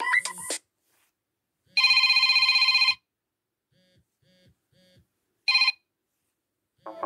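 Android ringtones played through a Nokia phone's speaker. A melody cuts off, then a ringtone imitating an old telephone bell plays: one trilling ring of about a second, three faint short beeps, then a brief second trill. A new synthesized melody starts near the end.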